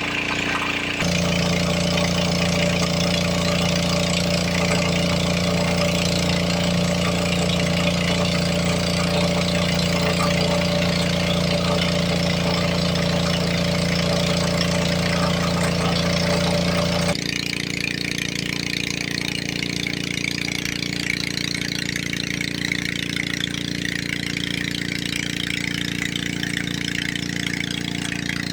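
Small petrol engine of an alkon water pump used for gold dredging, running steadily. Its tone changes suddenly about a second in and again about two-thirds of the way through.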